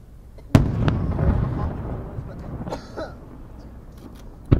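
Aerial firework shell bursting with a sharp bang about half a second in, its boom rumbling and echoing away over a couple of seconds. Another sharp bang comes near the end, with faint crowd voices between.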